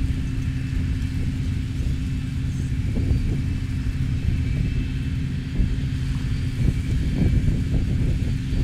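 Twin rear-mounted jet engines of an airliner running at low power as it taxis, a steady low rumble with a faint high whine.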